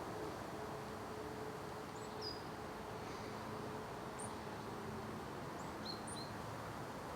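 Small birds chirping now and then, with short high calls, over steady outdoor background noise. A faint low hum fades out about halfway through.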